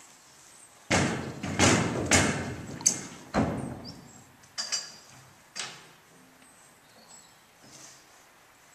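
Horse hooves striking the wooden ramp and floor of a horse trailer as the horse walks in: a series of heavy thuds about a second in, then a few lighter knocks that die away.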